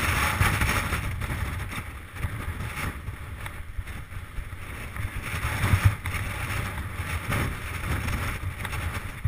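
Mountain bike rolling fast down a rocky singletrack: tyres crunching over gravel and stones and the bike rattling, with scattered knocks, the loudest about six seconds in. Wind buffets the action camera's microphone as a low rumble underneath.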